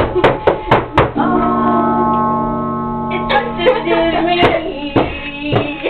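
Music from a strummed acoustic guitar: a few sharp strums, a chord held for about two seconds, then more strumming near the end.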